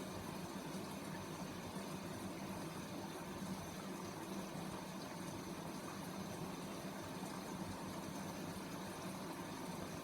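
Grundig washing machine running early in a quick 30-degree wash, a steady hum with water rushing inside the machine.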